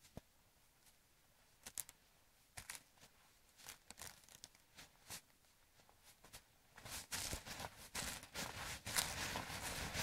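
Footsteps through short meadow grass, coming closer: faint, scattered crunching steps at first that grow much louder and more frequent from about seven seconds in.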